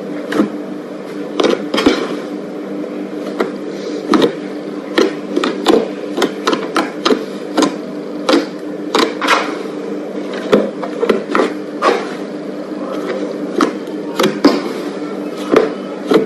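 Fluffy slime being worked, giving irregular sharp clicks and pops, one to three a second, over a steady low hum.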